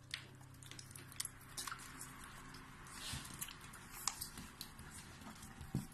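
Puppies suckling at their mother's teats: faint, irregular wet smacks and clicks, a few louder than the rest.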